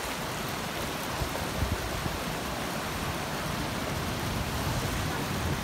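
Ocean surf breaking on a rocky shore, with water washing among the boulders: a steady rushing noise.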